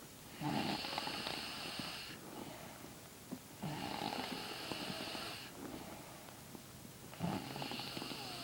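A person snoring in her sleep: three long snores about three seconds apart, the last one starting near the end.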